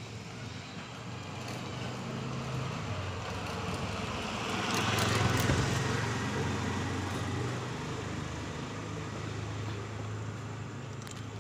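A vehicle passing by: a rushing noise that builds to its loudest about five seconds in and then fades, over a steady low hum.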